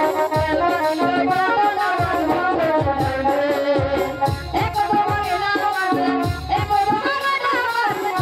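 Bangla song: a boy singing into a microphone over music with a melody line and a drum beat about once a second.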